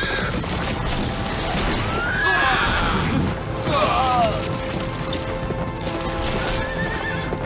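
Horses neighing several times, in short falling whinnies, over a dense clamour and background music.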